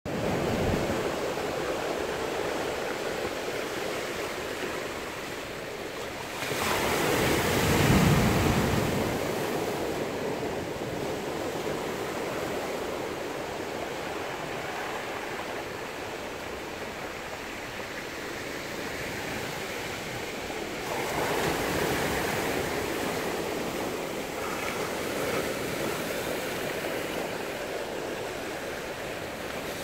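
Pacific Ocean surf breaking and washing over the boulders of a rock jetty: a continuous rush of water that swells louder around eight seconds in and again about twenty-one seconds in.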